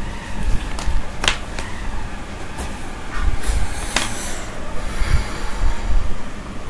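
Steady low rumble with a few sharp clicks, one about a second in and a louder one about four seconds in.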